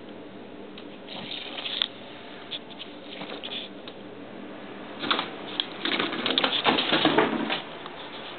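A cat scuffling on a tile floor and pushing at a rolled-up paper tube, heard as bursts of scratching and paper rustling. There is a short burst about a second in that ends in a sharp tap, then a longer, louder flurry from about five seconds in.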